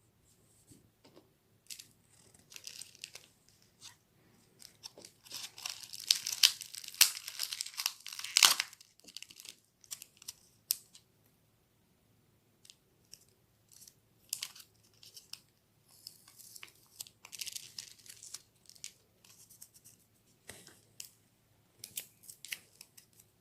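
Plastic packaging of Kyoho grape jellies being torn open and crinkled by hand, in irregular crackling bursts that are loudest about six to eight seconds in, with sharp clicks and quiet pauses between.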